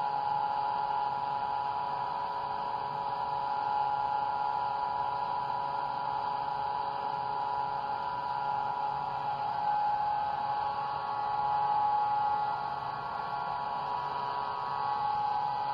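Vibratory stress relief equipment running during its vibration (aging) treatment of a welded part: a steady hum made of several steady tones. A few higher tones join about two-thirds of the way through.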